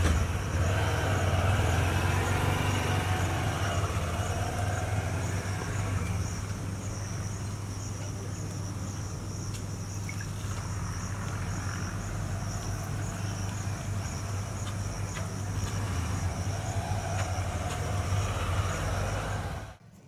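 Steady low mechanical hum, like an engine or machine running, under an insect chirping in a regular high-pitched pulse. Both cut off suddenly just before the end.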